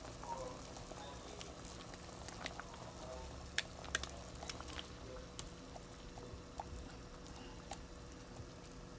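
A pot of chicken noodle soup boiling on a stovetop, its bubbles bursting in scattered sharp pops over a low bubbling noise, with a faint steady hum underneath.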